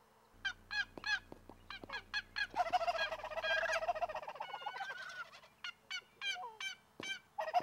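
Turkey calling: a quick series of short, sharp, falling yelps, then a dense, rapid rattling run like a gobble, and more yelps near the end.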